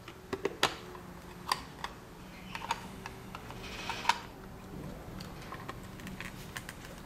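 A black plastic project box being handled and its lid worked open: irregular light clicks and knocks of plastic, the sharpest about four seconds in, over a faint steady low hum.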